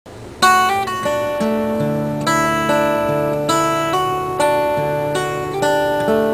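Acoustic guitar music, with a new chord struck about once a second.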